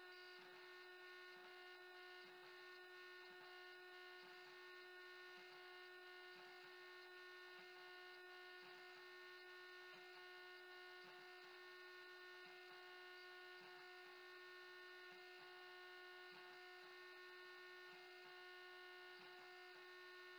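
Very faint, steady hum from a CNC router spindle running while it cuts HDPE, a single unchanging tone with overtones, barely above near silence.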